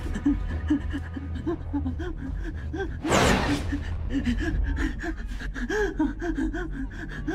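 A woman's rapid, panicked gasping breaths, short whimpering gasps about three a second, as she hyperventilates in a panic attack, over a steady low rumble. About three seconds in, a louder rushing noise lasts half a second.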